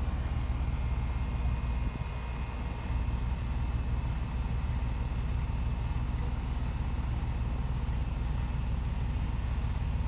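Outdoor air-conditioning condensing unit running, its compressor and condenser fan making a steady low hum, briefly a little quieter about two seconds in.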